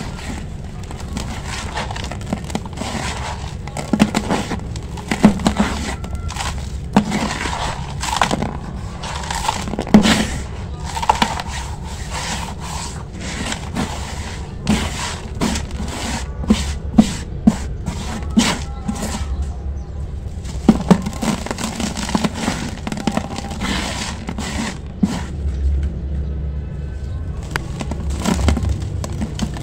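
Dry sand-cement chunks crushed and crumbled by hand in a basin: dense, irregular crunchy cracks with gritty pouring of dust and grit between them, briefly quieter about two-thirds of the way through.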